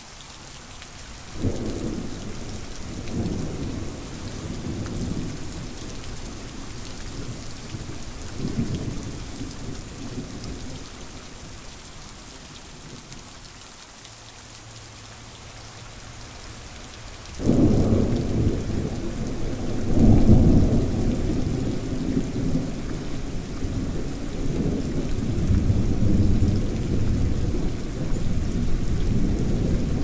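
Thunderstorm: steady rain with two rolls of thunder. The first rumbles in about a second and a half in and dies away over some ten seconds; the second, louder, starts suddenly a little past halfway and keeps rolling.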